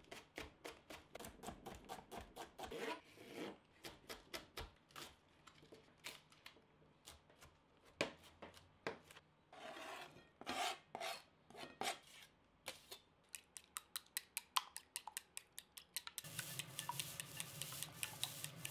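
Kitchen knife chopping spring onion on a plastic cutting board, a long run of quick, sharp taps, with the chopped onion scraped off the board into a bowl partway through. About three seconds before the end it changes to rice sizzling in a hot pan, a steady hiss with a low hum beneath.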